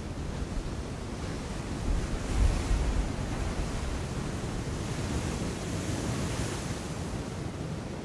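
Sea waves surging against rocky cliffs. A heavier low rumble of a wave breaking swells about two seconds in, followed by a hissing wash of water around five to seven seconds. Wind rumbles on the microphone throughout.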